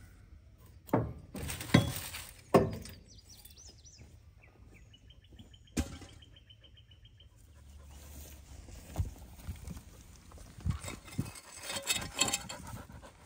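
Rusty steel cultivator parts clanking: three sharp metal knocks in the first few seconds, then small clicks and knocks in the last few seconds as parts of the tractor-mounted cultivator are worked on. Birds chirp in between.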